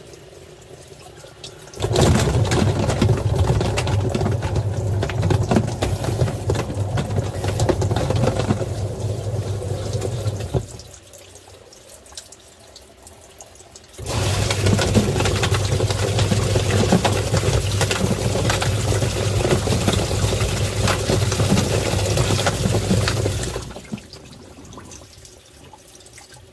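Twin-tub washing machine agitating a tub of water, a steady motor hum under churning, sloshing water. It runs for about eight seconds, pauses for about three, then runs again for about nine seconds before stopping near the end.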